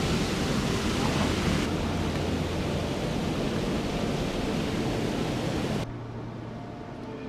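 Steady rush of water from a small waterfall over a weir. It cuts abruptly to a much quieter hiss about six seconds in.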